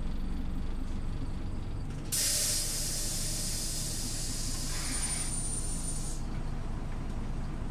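Scania OmniLink city bus engine running steadily. About two seconds in, a loud hiss of compressed air from the bus's pneumatic system starts suddenly, lasts about four seconds with a thin high whistle near its end, then cuts off.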